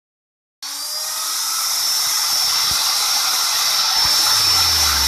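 Endico electric plunge router's motor running at high speed, a steady high whine that climbs slightly in pitch over its first second and then holds.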